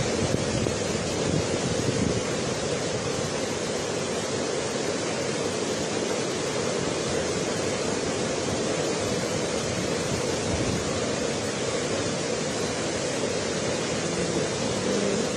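Floodwater of a swollen river rushing steadily past.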